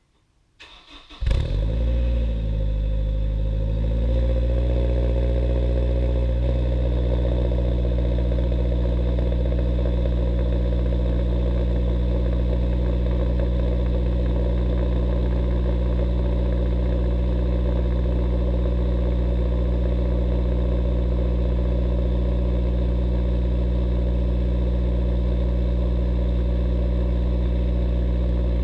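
2005 Honda S2000's four-cylinder engine cold-started through an Invidia Q300 dual exhaust with a 70 mm Berk test pipe: a brief crank about half a second in, then it catches with a sharp flare. The revs waver for a few seconds and settle into a steady cold idle.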